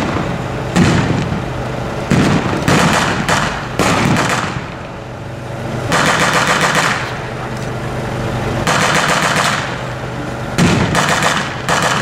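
Machine gun firing blanks in rattling bursts, with single sharp shots between them. The longest bursts come about six and nine seconds in.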